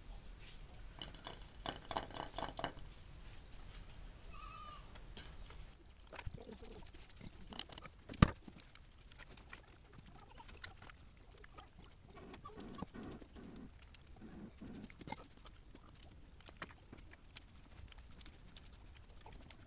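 Close-up eating sounds of watered rice (pakhala bhata) eaten by hand: soft chewing, smacking and the wet rice being gathered, with small clicks throughout and one sharp knock about eight seconds in, the loudest sound. Bird calls in the background about one to three seconds in.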